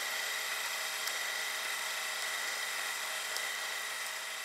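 Steady hiss with a thin, steady high whine and a few faint clicks, beginning to fade near the end.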